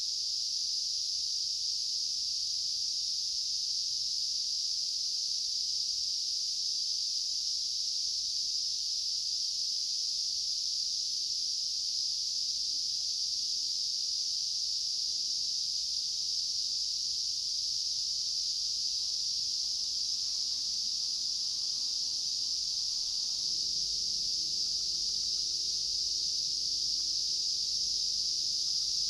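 Steady, unbroken high-pitched chorus of insects.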